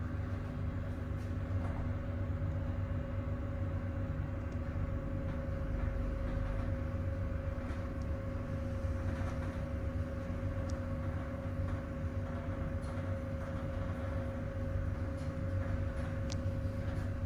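Fujitec elevator running, heard from inside the car: a steady low rumble with a constant hum and a few faint clicks.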